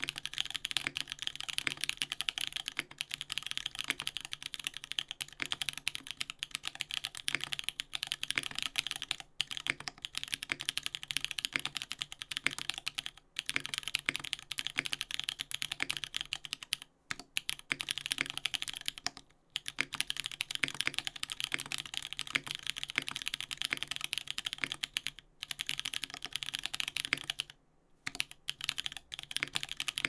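Continuous typing on a Dolumina65 custom mechanical keyboard with lubed Holychicky switches, a polycarbonate plate and GMK keycaps: a dense run of keystroke clacks, broken by a few short pauses.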